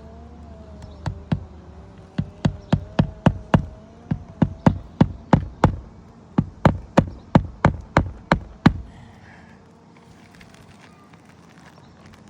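Hammer driving roofing nails into asphalt shingles: about twenty sharp strikes in four quick runs, roughly three a second, which stop near the end. A faint wavering hum sits under the first half.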